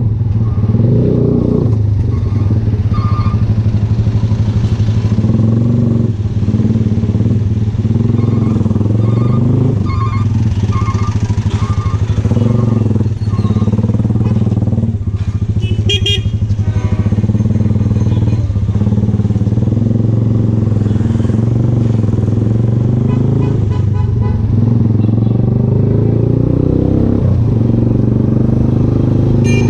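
VLR200 motorcycle with an aftermarket Devil exhaust can running at a steady cruise, its engine note dipping briefly a few times.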